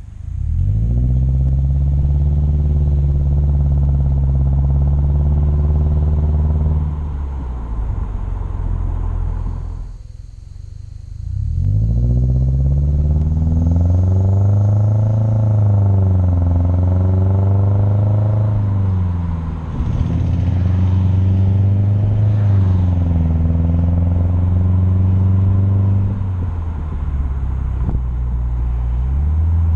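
Exhaust of a Subaru Crosstrek's flat-four engine through a Nameless Performance 5-inch muffler, heard while driving. The drone rises as the car accelerates, holds while cruising, and falls away when the throttle eases, several times over. There is a brief lull about eleven seconds in.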